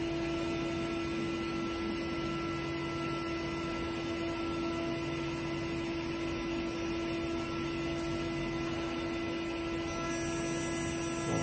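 CNC milling machine spindle running steadily with a constant whine, while a lower hum comes and goes several times as the head is jogged by handwheel toward the workpiece.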